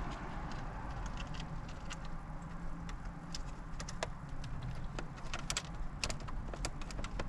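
Scattered small clicks and ticks of a metal trim clip and plastic dash panel being handled and worked into place, over a low steady hum.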